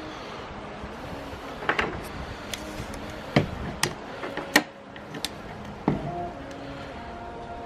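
Scattered knocks and metallic clinks, about seven over a few seconds, of metal parts and tools being handled on a work surface.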